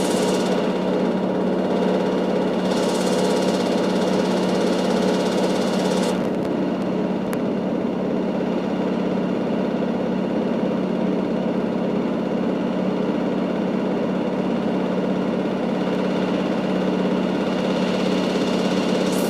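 Fisher & Paykel GW712AU top-loading washing machine running steadily in its final spin at top speed, 800 RPM, with a constant hum and vibration. A higher rushing hiss rises over it for about three seconds, a few seconds in, and again near the end.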